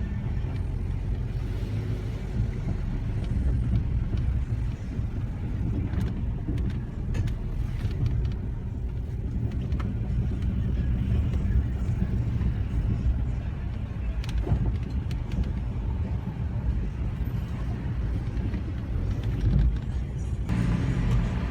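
Nissan car running with a steady low rumble and scattered short clicks, the grinding sound its owner cannot identify; the sound turns brighter near the end.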